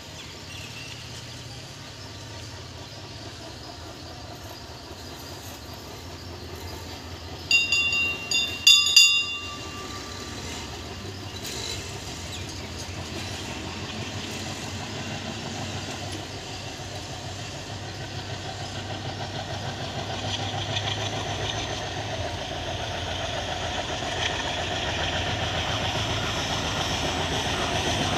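Approaching Indian Railways WDG-3A diesel locomotive, an ALCO 16-cylinder engine, hauling its train. A low engine rumble builds steadily louder as it nears, with two short horn blasts about eight seconds in.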